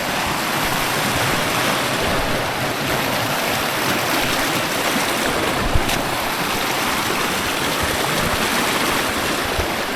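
Rushing river water running over rocks, a steady even rush, with one brief click about six seconds in.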